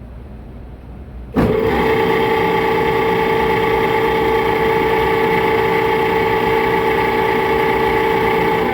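Belt-driven air-handler blower kicking on about a second and a half in, then running with a loud, steady whine made of several fixed high tones. The noise comes from the blower's bad bearings.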